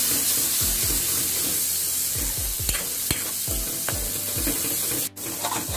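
Onion, ginger-garlic paste and ground spices sizzling in mustard oil in a metal kadai, stirred and scraped with a metal spoon two or three strokes a second while the masala is fried down. The sound cuts out for a moment near the end.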